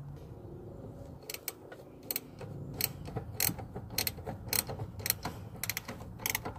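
Ratchet wrench with a 13 mm socket clicking in short, uneven strokes while loosening a bolt. The clicks start about a second in and come two or three a second.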